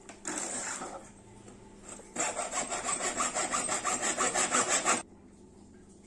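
Hacksaw cutting through 4-inch PVC pipe: a short burst of strokes, a brief lull, then a louder run of quick, even back-and-forth strokes that stops abruptly about five seconds in.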